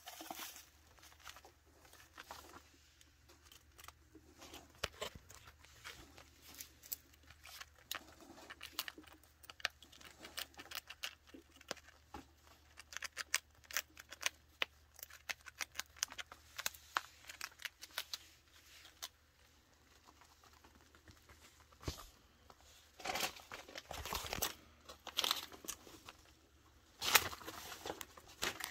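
Light clicks, scratches and rustles from chinchillas moving about, with small crunches as they nibble cereal rings. A few louder rustling bursts come near the end.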